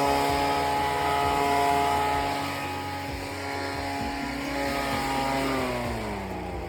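Small gasoline engine of lawn equipment running at a steady high speed. Near the end its pitch falls steadily as the engine slows down.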